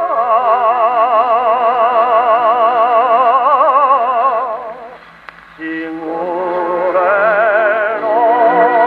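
A 1932 78 rpm record of a tenor with orchestra singing a Japanese song, played on an EMG Mark Xb acoustic gramophone with a thorn needle. The voice holds long notes with a wide vibrato and breaks off about four and a half seconds in, with a single click in the short pause. It then takes up a new phrase, the sound dull and lacking in highs.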